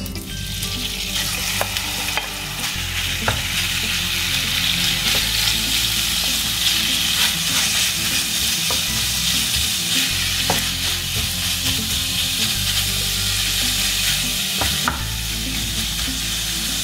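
Raw minced chicken breast sizzling as it fries in hot olive oil in a nonstick pan, stirred with a wooden spatula. Occasional clicks come from the spatula against the pan.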